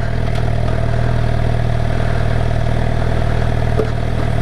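2017 Suzuki GSX-R 750's inline-four engine running steadily at low speed.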